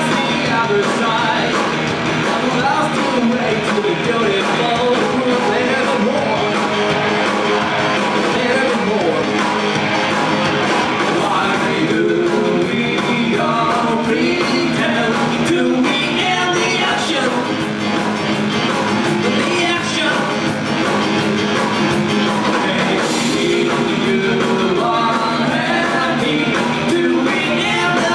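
Rock band playing live: a sung lead vocal over guitars and drums.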